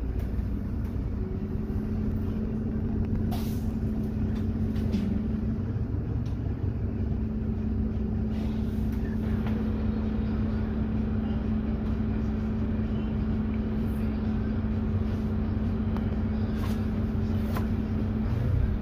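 Solaris Urbino 12 IV city bus running with a steady, unchanging engine drone and hum, with a few faint clicks and knocks over it.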